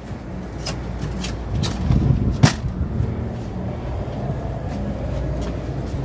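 Entry door of a Jayco travel trailer being handled and swung open, its latch and lock hardware giving several sharp clicks, the loudest about two and a half seconds in, over a steady low rumble.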